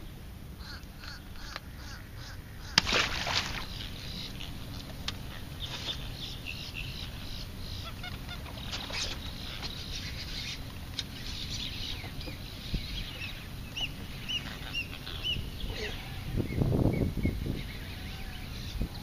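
Water birds calling over and over in short honking calls. A sudden loud knock comes about three seconds in, and a short low rumble near the end.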